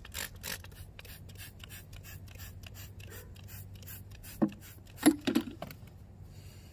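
Trigger spray bottle squirted rapidly onto a plastic ATV airbox, several squirts a second, stopping near the end. A few louder knocks come shortly before the spraying stops.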